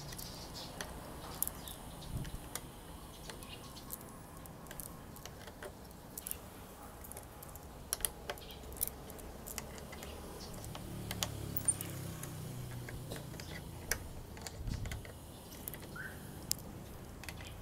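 Light, irregular metallic clicks and ticks of a small Allen key working a screw on a motorcycle's tank fairing.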